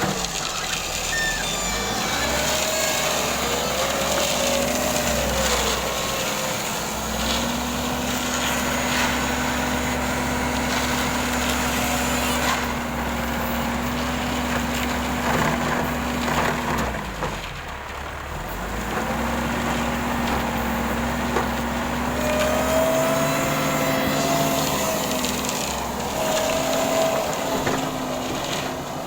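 Heavy construction machine engine running steadily under load, with whining tones rising and falling in pitch. The engine note drops briefly a little past halfway, then picks up again.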